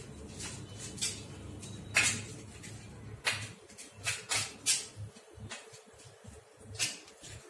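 Scattered light clicks and taps of handling, bunched between about two and five seconds in, over a faint low hum.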